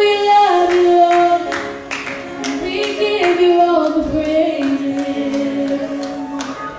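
Gospel singing: a voice holds long notes that step up and down in pitch, over a steady beat of sharp strokes a little over twice a second.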